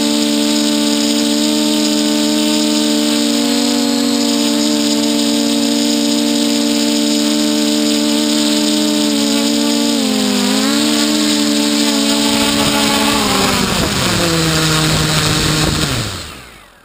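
Hexacopter's electric motors and propellers whining steadily in several close pitches, wavering briefly about ten seconds in. The pitch then falls steadily as the craft sets down in the grass and the motors spool down, dying away near the end.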